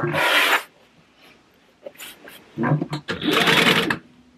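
Heavy-duty sewing machine stitching in short runs: a half-second burst, a pause, then about a second of stitching that stops abruptly.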